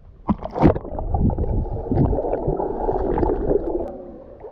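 Water splashing and gurgling in a swimming pool. A few sharp splashes come about half a second in, then a steady, muffled churning fades near the end.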